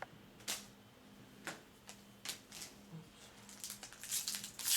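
Trading cards being handled and flipped through: a few separate light clicks and slaps about a second apart, then denser papery rustling near the end, over a faint steady hum.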